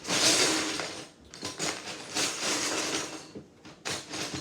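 Plastic Lego bricks being handled, a clattering rattle that comes in irregular bursts with short pauses.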